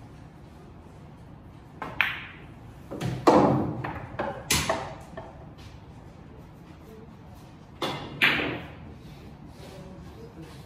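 Billiard balls on a pool table: a sharp click of the cue tip on the cue ball about two seconds in, then a run of loud clacks and knocks of balls striking each other and the cushions as a ball is pocketed, with one more sharp click near the end.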